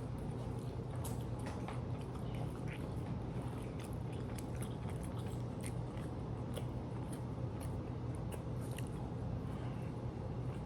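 People biting and chewing food, with small scattered crunches and mouth clicks over a steady low hum.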